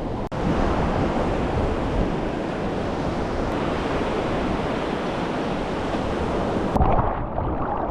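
Steady rushing wash of ocean surf breaking. A sharp click about a third of a second in and another near the end mark abrupt changes in the sound.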